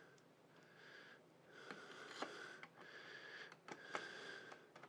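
Faint breathing through the nose, in several short breaths, with a few light clicks.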